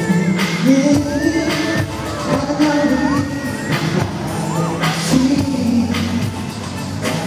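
Live pop song: a male singer on a headset microphone sings over amplified backing music with a steady beat.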